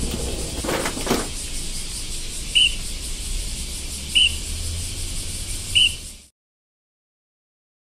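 Three short, high chirps about a second and a half apart over a steady low rumble and hiss. A couple of faint knocks come about a second in, and the sound cuts off abruptly to dead silence near the end.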